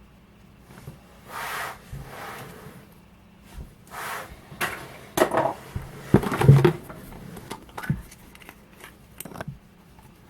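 Hands opening a chocolate surprise egg: the foil wrapper rustles a few times, then a run of clicks and knocks from the egg and its plastic toy capsule, loudest past the middle.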